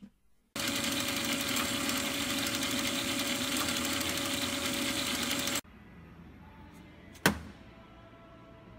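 A machine running steadily with a loud, even noise and a constant tone. It starts suddenly about half a second in and cuts off abruptly near the middle, leaving a faint hum broken by one sharp click.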